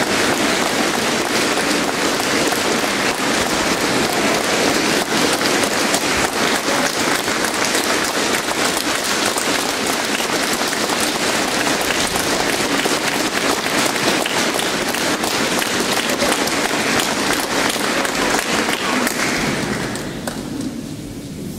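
Audience applauding, a dense steady clapping that dies away about twenty seconds in.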